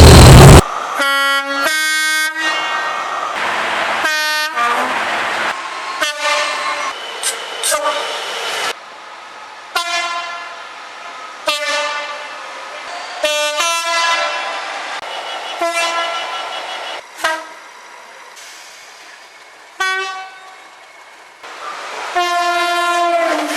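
Two-tone air horns on British diesel locomotives and trains sounding a rapid series of short blasts, many as a high note and a low note in turn, each one cut off abruptly as the next begins. The first half-second is louder and fuller than the rest.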